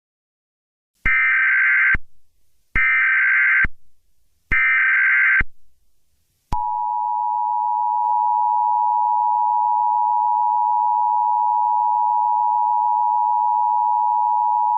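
Emergency Alert System tones. Three bursts of SAME header data, each about a second long, are followed by the steady two-tone EAS attention signal for about eight seconds. Together they announce an emergency alert message.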